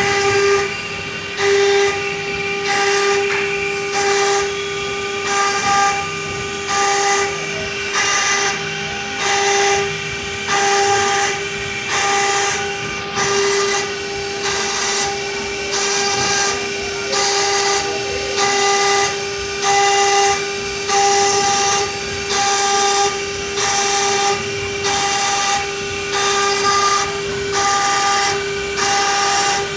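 CNC stone router's spindle running with a steady high whine while its bit engraves a stone slab under water coolant. A scraping cutting noise swells and fades about once a second as the tool works back and forth across the pattern.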